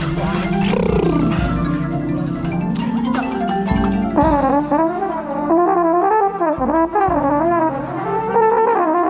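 Drum and bugle corps brass and mallet percussion playing: held brass chords over marimba strikes, then, about four seconds in, a single wavering melody line comes to the front.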